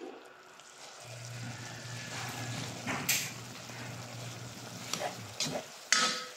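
A spatula stirring and scraping in a nonstick pot of simmering sauce, with a few short knocks and scrapes, the loudest about three seconds in and just before the end. A low steady hum runs underneath from about a second in until about five seconds in.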